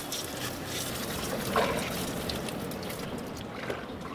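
Fresh water from a garden hose spraying and trickling over a Yamaha two-stroke outboard motor, rinsing salt water off it after it was submerged. The spray stops about three seconds in.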